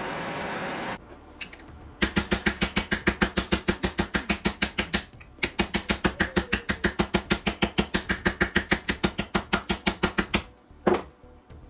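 A hand-held propane torch hissing steadily, shut off about a second in. Then a hammer striking aluminium angle clamped in a bench vise: rapid, even blows about five a second for several seconds, with a short pause midway and one last knock near the end.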